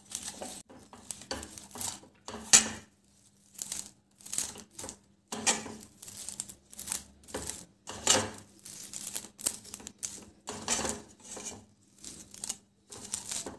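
A spatula stirring caramel-coated popcorn around a pan: irregular rustling and scraping strokes, about two a second, as the popcorn is turned to coat it evenly in caramel.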